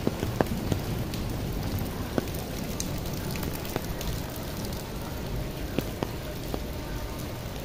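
Steady rain falling, heard from under an umbrella, with scattered sharp taps of single drops striking it every second or so.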